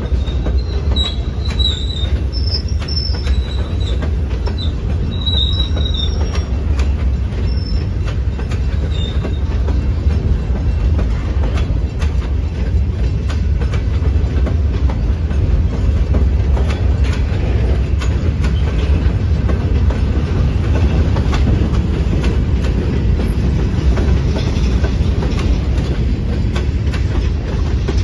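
Freight train of open-top hopper cars rolling past steadily: a continuous low rumble of steel wheels on rail with frequent clicks. Short, high metal squeals come and go during the first nine seconds or so.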